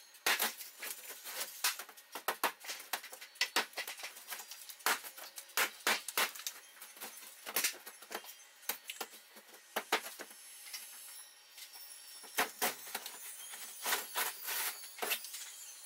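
Drywall being broken and pulled off wooden wall studs: irregular sharp cracks, snaps and crunches, several a second.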